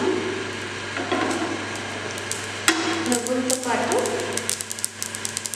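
Sesame seeds dry-roasting in a nonstick pot. A spoon scrapes through them, then small crackling clicks from the hot seeds come thicker toward the end.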